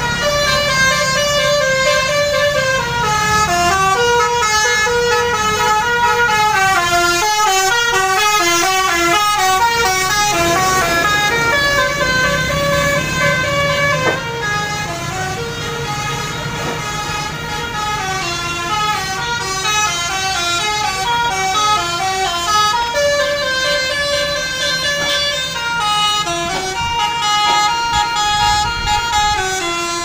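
Bus telolet horn, an Indonesian multi-tone musical air horn, playing a melody of short notes that step up and down without a break. A bus engine runs underneath.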